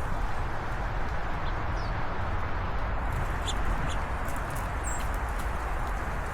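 Outdoor ambience: a steady rushing background noise with a few short, high bird chirps scattered over it.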